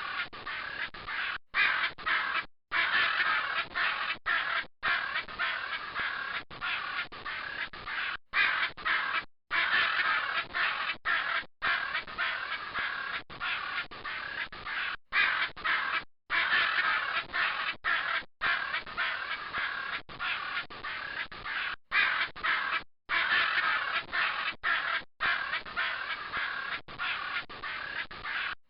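Macaws squawking continuously, harsh raspy calls overlapping one another, broken every second or two by brief dead-silent gaps.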